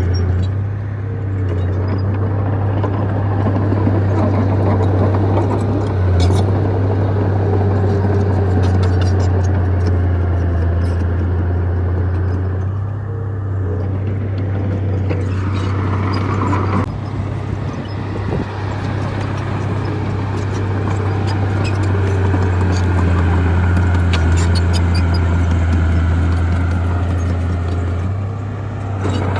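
Bulldozer's diesel engine running with a steady low drone, over scattered clanks, and a brief higher whine about halfway through that stops abruptly.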